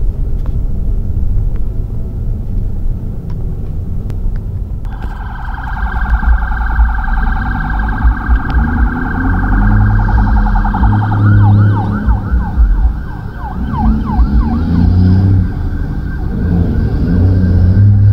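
Ambulance's electronic siren switching on about five seconds in with a fast warble, changing to a slower yelp a few seconds later, heard from inside a car over the low rumble of its engine and road noise.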